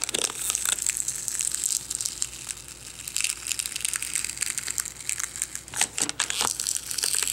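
Aluminum foil tape crinkling steadily as it is gently peeled off the back of a laptop LCD screen, with sharp crackles scattered throughout.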